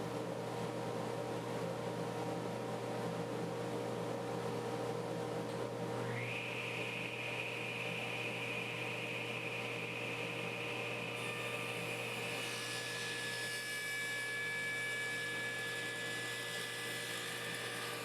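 Table saw running with a steady hum. A higher whine joins about six seconds in, and more high-pitched tones come in near the twelve-second mark.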